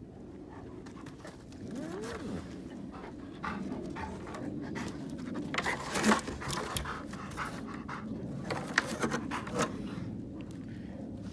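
Dog panting, with irregular short scuffs and scrapes throughout, the loudest about six and nine seconds in.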